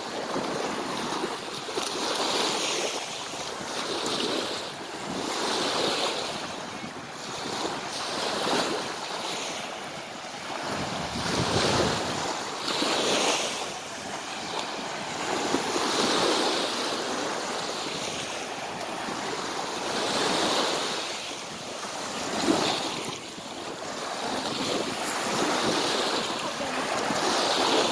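Small sea waves breaking and washing up a pebble beach, the hiss swelling and fading every couple of seconds, with wind buffeting the microphone now and then.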